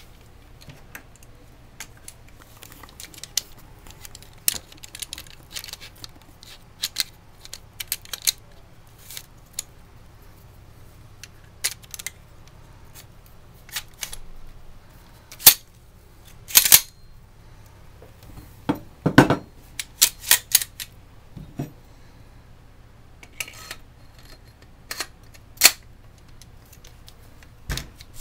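Remington 870 pump shotgun parts being handled and fitted together: irregular metal clicks and clinks, with a heavier knock about 19 seconds in.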